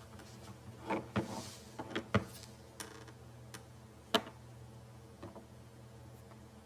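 A handful of light clicks and taps from small plastic toy pieces being handled, the sharpest about two seconds and four seconds in, over a faint steady hum.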